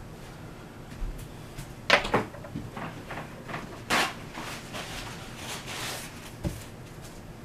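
Handling noises: several sharp knocks and clatters of objects being moved and set down, the loudest a double knock about two seconds in and another about four seconds in, with rustling in between.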